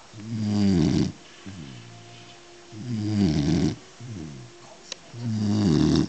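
Beagle snoring: three loud snores about two and a half seconds apart, with softer breaths between them that fall in pitch.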